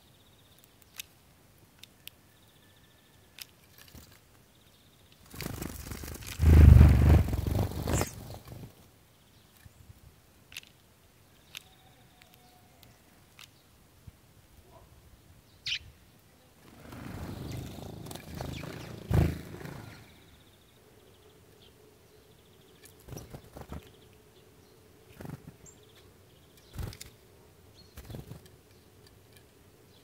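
A sparrow feeding at a plastic tube seed feeder: scattered light clicks and taps of pecking and claws, and a few faint chirps. Two loud rumbling bursts of wind on the microphone come about six and eighteen seconds in.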